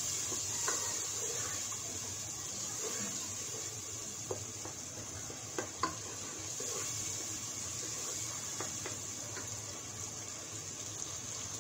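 Wet spice paste sizzling steadily in a pot as a wooden spoon stirs it while it fries down, with a few light knocks of the spoon against the pot in the middle.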